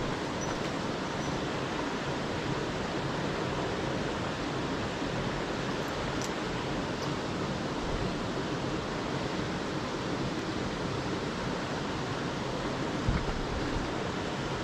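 Mountain stream water rushing, a steady, even wash of noise. A brief low thump comes about 13 seconds in.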